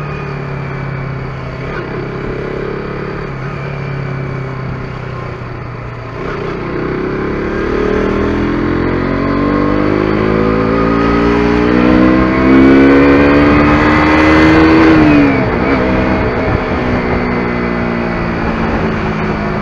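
KTM RC 125's single-cylinder engine running at a steady note, then revving up in one long rising pull for several seconds before the throttle closes and the pitch drops sharply, settling back to a steady lower note.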